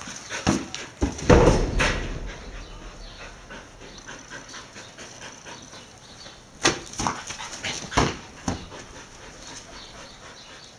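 Kelpies at play, barking and whimpering in short bursts: the loudest comes between one and two seconds in, and another cluster comes around seven to eight seconds in.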